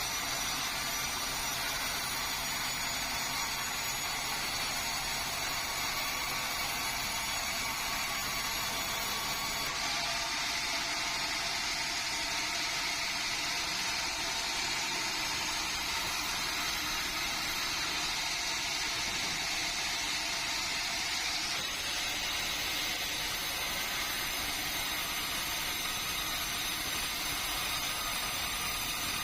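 Sawmill saw running steadily through meranti timber, a continuous machine noise with high whining tones that change character about ten seconds in and again about twenty-two seconds in.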